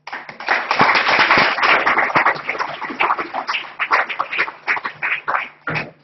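Audience applauding, starting suddenly, dense at first and thinning out to scattered claps over about six seconds.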